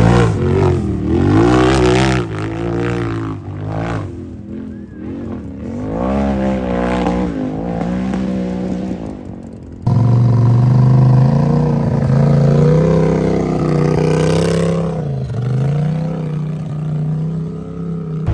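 UTV engine revving hard, its pitch rising and falling again and again as the throttle is worked. About ten seconds in the sound jumps abruptly louder and holds a high, fairly steady pitch, dipping once briefly before picking up again.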